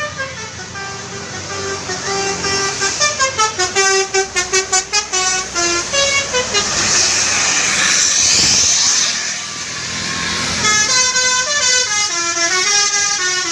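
Telolet basuri multi-tone bus horn playing a tune in stepped notes, with a run of quick staccato toots about three to five seconds in. A stretch of loud hiss fills the middle before the tune resumes.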